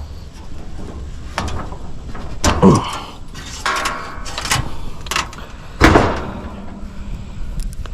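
Hands working on metal parts inside a heat pump's outdoor unit while fitting a new defrost sensor: a series of knocks and clicks, the loudest about six seconds in, with a short rattling scrape around the middle.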